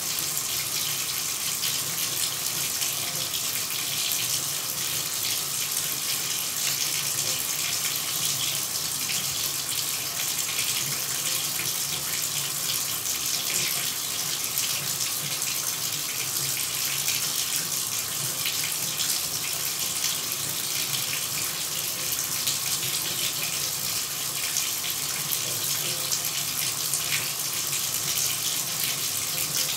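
Shower running: a steady, even hiss of falling water spray, with most of its energy in the high range.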